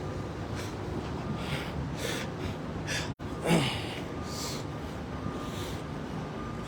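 Steady low background hum and noise, with one short falling vocal sound, like a breathy 'huh', about three and a half seconds in, just after a momentary dropout.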